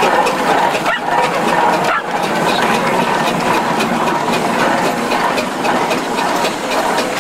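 Steam traction engines working close by: a steady mechanical din with a faint, quick, even beat coming through from about two seconds in, with spectators' voices mixed in.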